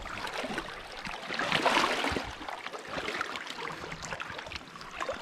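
Shallow water splashing and sloshing as someone wades through weeds at the river's edge and dips a landing net, a little louder about two seconds in.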